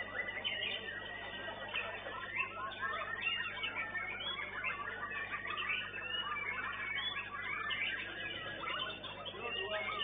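Many white-rumped shamas (murai batu) singing at once in a songbird contest: a dense, unbroken mix of overlapping whistled phrases and chirps.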